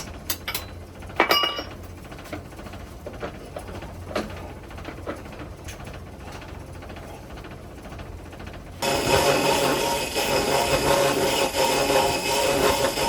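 Light metal clinks and taps of hand tools and parts being handled, one ringing briefly about a second in. About nine seconds in a power tool starts abruptly and runs steadily and much louder.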